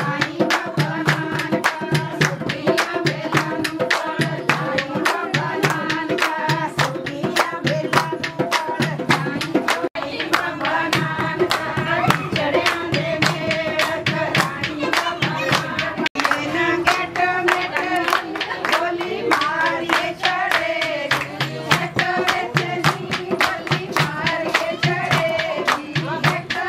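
Singing over a quick, even hand-clapping rhythm, with a repeating low drumbeat underneath.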